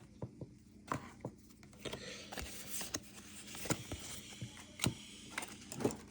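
Pokémon trading cards being handled: scattered light clicks and taps, with a few soft slides of card stock against card.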